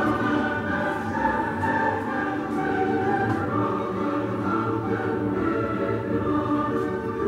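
Background music: a choir singing long, sustained chords.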